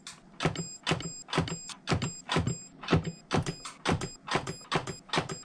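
Handheld kWeld spot welder firing in rapid succession, about four sharp snapping welds a second, as the probes fuse nickel strip onto LiFePO4 32650 cells; a thin high whine comes and goes between the welds.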